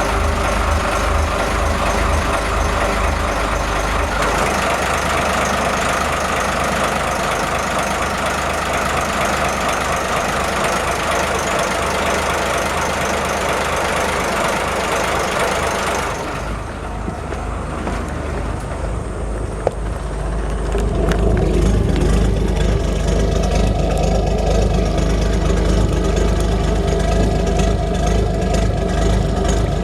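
A boat's engine running steadily. About sixteen seconds in the sound changes and dips, and from about twenty-one seconds it runs louder and deeper.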